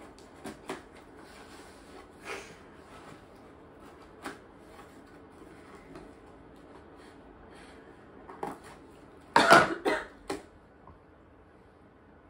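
Scissors cutting packing tape on a cardboard box: scattered snips, scrapes and taps on the cardboard. A louder clatter of several sharp knocks comes a little past the middle.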